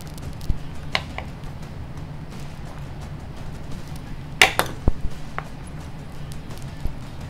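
Scattered sharp clicks and light metallic clinks of small diff parts, gears and aluminium cross pins, being handled and set into an RC buggy differential. The loudest, a quick pair, comes about four and a half seconds in, over steady background music.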